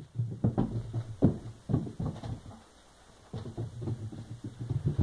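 Soft irregular taps and thumps, about two or three a second, as a Chihuahua runs about a carpeted hallway playing fetch, with a lull of about a second near the middle and a low steady hum underneath.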